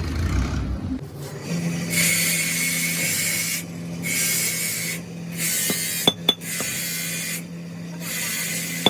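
Repeated rasping strokes of hand abrasive work, like filing or sanding, each about a second long, over a steady low hum. Two sharp clicks come about six seconds in.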